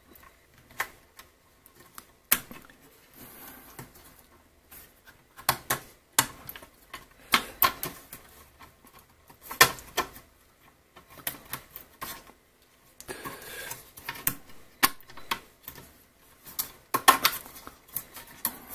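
Irregular small clicks and taps of plastic wire connectors being fitted onto a circuit board's pin headers while the board is handled inside a soldering station's metal case.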